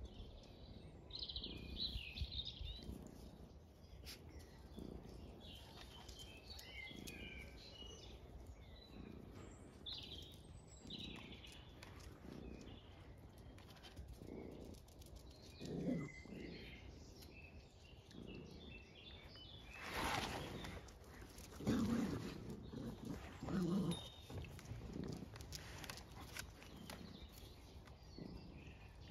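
Dogs play-wrestling on grass: a few short low growls from the young dog and puppies, mostly in the second half, with a rustling scuffle in between. Small birds chirp throughout.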